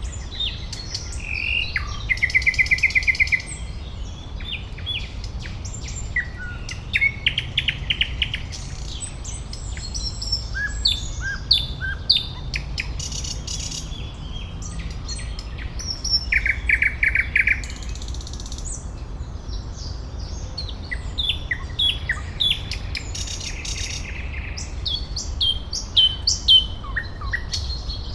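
Several birds singing: short chirps and rapid trills, with a few quick rattling trills near the start, around the middle and around two thirds of the way through. A steady low rumble runs underneath.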